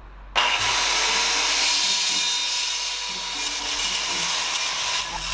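DeWalt corded circular saw starting up and cutting through a wooden board, with a high motor whine under the loud rasp of the blade in the wood; it starts suddenly about a third of a second in. The sound is loud.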